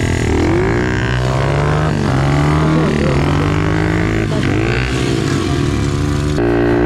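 SSR pit bike's four-stroke single revving up and down repeatedly, its pitch rising and falling as the rear wheel struggles for traction on grass.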